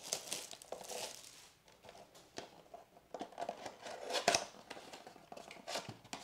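Trading cards and cardboard packaging being handled: crinkling and rustling in bursts, with a few sharp taps, the loudest about four seconds in.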